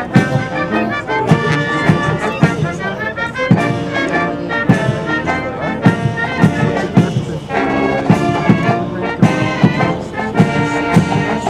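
Military brass band playing a march: trumpets and trombones over a steady drum beat of about two beats a second.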